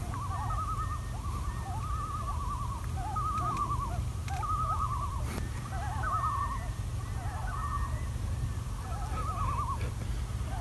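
Several common loons calling to one another across a lake: repeated wavering tremolo calls, some overlapping, with shorter rising notes between them, over a steady low rumble.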